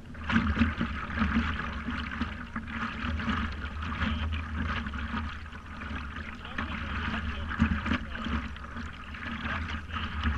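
Water lapping and splashing against the nose of a stand-up paddleboard, over a steady low rumble, with a few sharper splashes.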